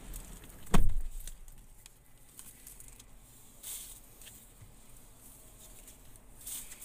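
A Cadillac XT5's door shutting with one heavy thud about a second in, then the protective plastic wrap on the new steering wheel crinkling briefly twice under a rubbing hand.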